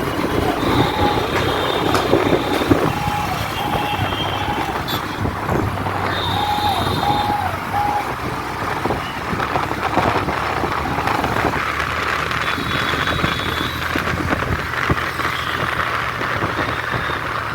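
Street traffic noise with a steady engine hum, and short electronic beeping tones in quick runs of about three, sounding three times in the first half.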